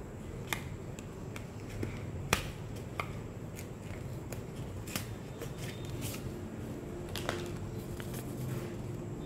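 A stiff paper strip being unrolled and unfolded by hand: scattered crisp paper crackles and clicks, the sharpest about two seconds in.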